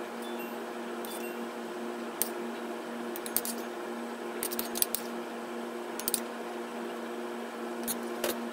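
Metal spoon clinking and scraping against a stainless steel bowl and a small ceramic dish as cooked chirimen sansho is scooped and plated: scattered sharp clicks, a quick cluster about halfway through. A steady hum runs underneath.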